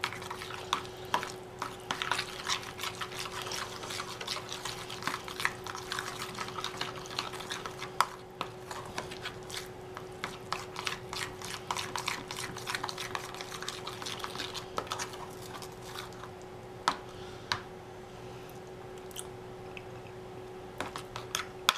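A fork stirring thick mayonnaise-based tartar sauce in a plastic container: wet squishing with quick clicks of the fork against the plastic, fewer in the last few seconds. A faint steady hum runs underneath.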